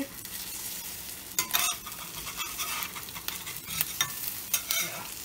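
Fried eggs sizzling steadily in hot oil and butter in a cast iron skillet, with scattered sharp pops and crackles. A metal spatula works under the eggs against the pan's iron.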